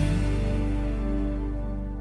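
Music from a telenovela's opening theme: a held chord slowly fading out.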